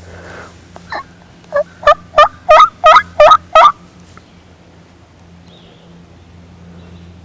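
Hen turkey yelps made on a hunter's turkey call: a run of about eight yelps, about three a second, the first couple soft and the rest very loud.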